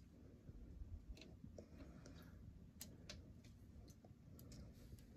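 Near silence: room tone with a few faint, sharp clicks scattered through it.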